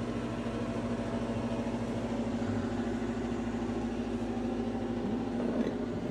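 Bathroom exhaust fan running, really loud, with a steady hum.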